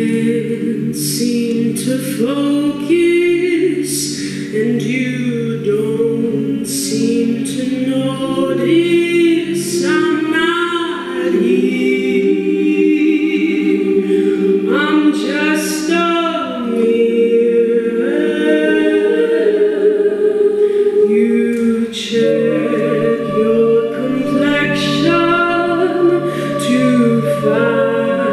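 All-female soprano-alto a cappella group singing into microphones with no instruments: the backing voices hold layered chords under a moving melody line. The lowest held notes drop out partway through and come back later.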